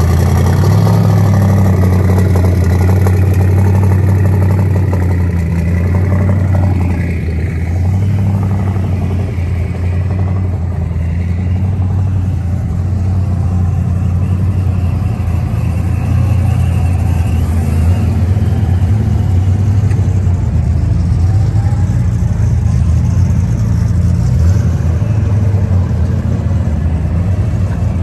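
Fox-body Ford Mustang engine idling nearby: a loud, steady low rumble.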